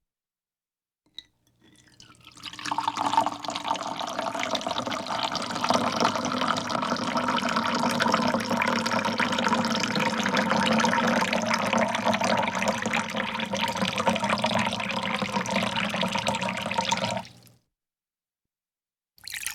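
Water running steadily, with a dense splashing hiss. It swells in over about a second after a brief silence, holds for roughly fifteen seconds, and then stops abruptly.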